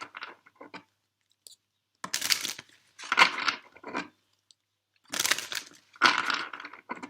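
A deck of oracle cards being shuffled by hand: several short bursts of card noise about a second apart, starting about two seconds in.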